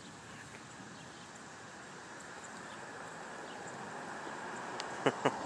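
Outdoor storm ambience: a steady rush of wind and rustling, slowly growing louder, with a few sharp clicks near the end.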